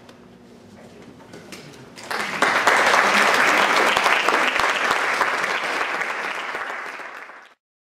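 Audience clapping, beginning about two seconds in after a quiet pause, then tapering a little and cutting off abruptly near the end.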